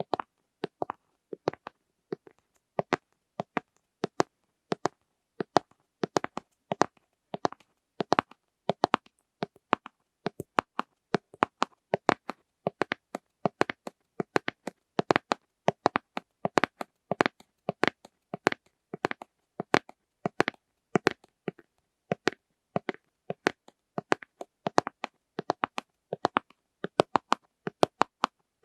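Fingertips tapping and clicking on plastic lids: a steady run of short, sharp taps, several a second, often in quick pairs or clusters, with silence between them.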